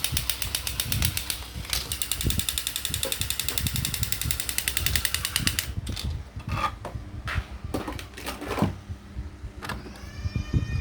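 A toy's mechanism runs with a rapid, even clicking rattle and stops suddenly about six seconds in. A few irregular plastic knocks and clatters follow. Near the end an electronic tone starts, rising and then falling.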